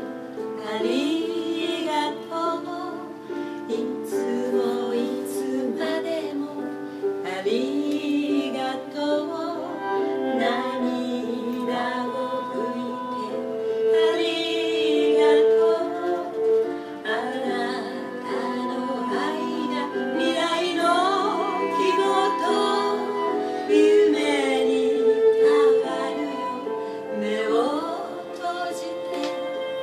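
A song: a sung melody with vibrato over instrumental accompaniment.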